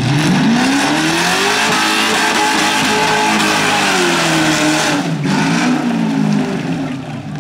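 Holden Commodore engine held at high revs through a burnout, with the spinning tyres hissing. The revs climb at the start, drop briefly about five seconds in, then rise and fall again.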